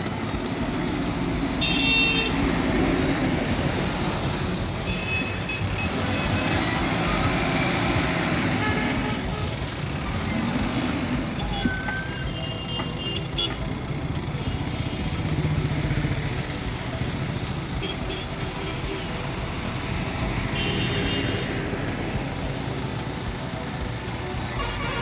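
Diesel engine of a JCB backhoe loader working, its rumble swelling several times as it takes load, with a few short high toots over it and road traffic around.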